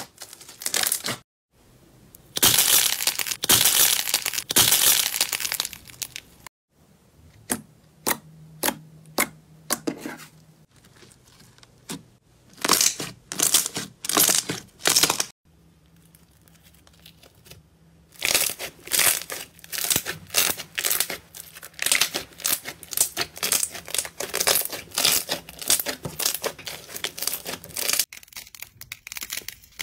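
Hands pressing and squeezing slime, giving dense crackling and popping. It comes in several stretches broken by brief silences.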